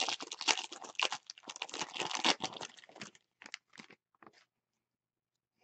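Foil wrapper of a trading-card pack being torn open and crinkled by hand: a dense crackling run for about three seconds, then a few brief rustles as the cards come free.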